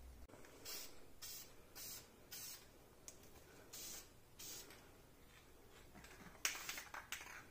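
Aerosol can of VHT caliper paint spraying onto a brake caliper in short, faint hissing bursts, then a longer burst near the end.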